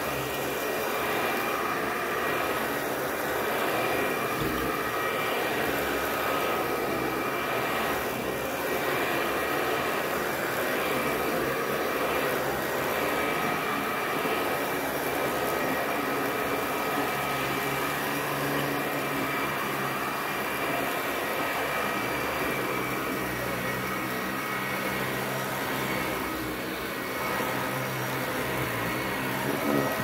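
Dyson stick vacuum running steadily as it is pushed over rugs: a rushing hiss of air with a high motor whine.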